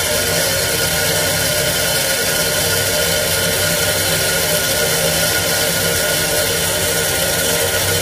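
Solenoid water feed valve on a Burnham steam boiler letting water into the boiler: a loud, steady rushing noise as the boiler refills after the low water cut-off has called for water on a low level.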